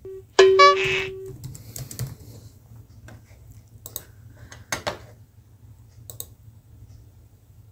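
A short steady tone about half a second in, then scattered computer keyboard keystrokes and clicks, typed to bring up Google Maps.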